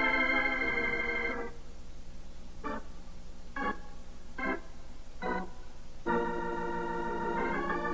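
Organ music: a held chord fades out, four short detached notes follow about a second apart, then another sustained chord comes in near the end.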